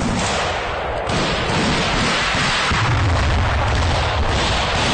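Loud, continuous din of a firefight: gunfire and booms run together, with a heavier low rumble about three seconds in.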